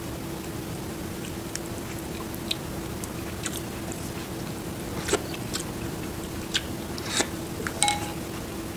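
Scattered light clicks and taps of a ceramic soup spoon and crackers being handled over a bowl of noodle soup, ending with a short ringing clink near the end as the spoon is set down against the bowl. A steady low hum runs underneath.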